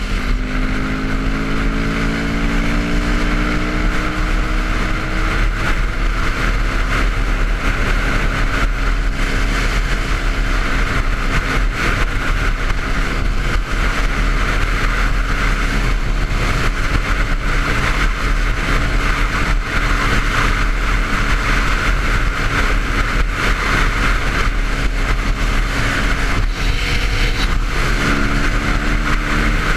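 Single-cylinder engine of a 2009 Yamaha WR250X supermoto with an FMF Q4 exhaust, pulling at freeway speed under heavy wind rush. The revs climb steadily for the first few seconds and then hold. A gear change comes near the end.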